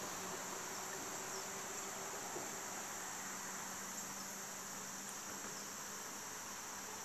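Steady, high-pitched chorus of insects trilling, with a faint low steady hum beneath it.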